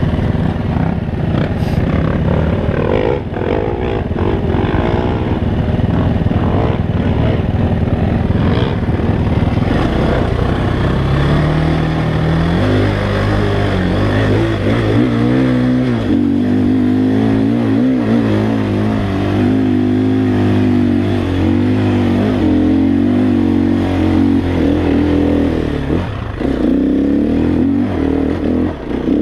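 KTM 350 XCF-W single-cylinder four-stroke dirt bike engine with a full Akrapovic exhaust, ridden under load. Its note rises and falls with the throttle and gear changes, then holds at steady revs from about halfway through.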